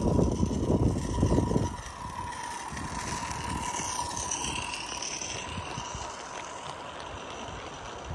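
Live-steam G-scale Accucraft Shay geared locomotive running past close by, with a steady hiss and mechanical running noise from the engine and its train on the track. A low rumbling is loudest in the first second or so.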